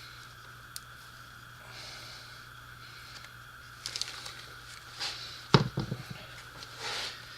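Work noises from reassembling an NP247 transfer case: a single click, then a short run of clicks about four seconds in, then a heavy knock with a brief clatter about five and a half seconds in, the loudest sound. A steady low hum runs underneath.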